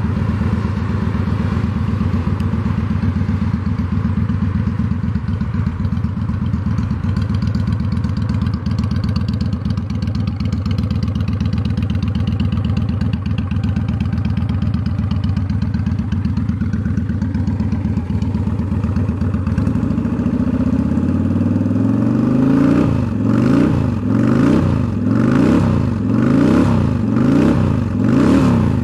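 2005 Honda Shadow Aero 750's V-twin engine running through a Cobra aftermarket exhaust, idling steadily. About two-thirds in the throttle is opened, and the engine is revved in several quick blips, pitch rising and falling each time.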